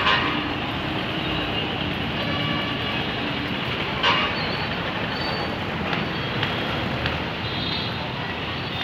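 Busy roadside traffic: bus and motorcycle engines running steadily as coaches manoeuvre and motorbikes pass. Two brief louder sounds stand out, one right at the start and one about four seconds in.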